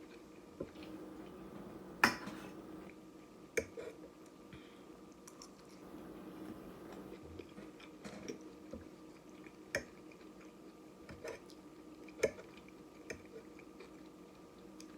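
Close-miked mouth sounds of eating noodles and fish: chewing, with a few short sharp clicks, the loudest about two seconds in, over a low steady hum.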